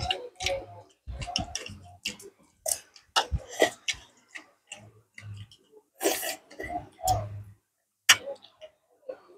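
Eating at the table: chopsticks clicking and tapping against porcelain bowls in a run of short, irregular ticks, with chewing and slurping of sour soup from the bowls.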